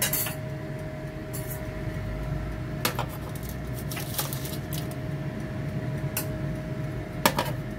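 Small electric oven running with a steady hum and a faint fixed tone. About six brief clicks and scrapes of a metal spatula on the foil-lined oven tray come at irregular moments.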